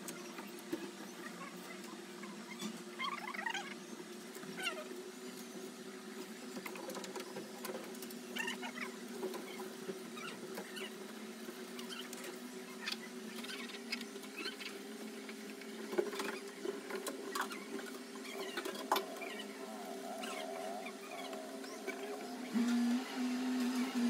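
A cloth wiping the plastic body of a top-load washing machine, making short squeaks and scattered rubbing clicks over a steady low hum. A louder low hum comes in near the end.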